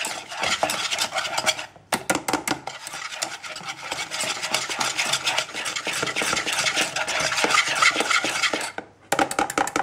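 Wire whisk beating thick, chilled pastry cream in a saucepan to loosen it: fast, continuous scraping and clicking of the wires against the pan, with a short break about two seconds in and another near the end.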